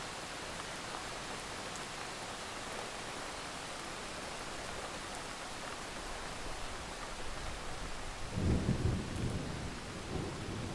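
Steady hiss of rain, then deep uneven rumbling of thunder starting about eight seconds in.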